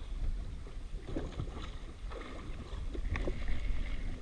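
Choppy sea water slapping against the hull of a drifting jet ski, with wind buffeting the microphone and a few faint clicks.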